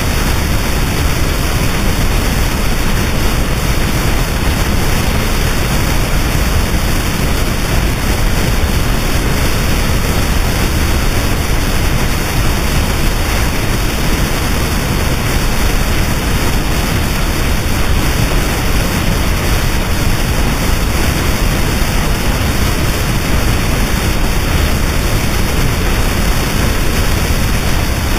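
Harsh noise wall recording: a loud, unchanging wall of dense static, thick rumble and hiss together, with no rhythm or pitch.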